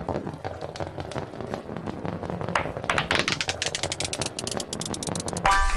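Plastic marble run with marbles rolling and clicking along the track, turning into a fast, even clicking with a rising pitch in the second half. A pitched electronic tone from the toy begins just before the end.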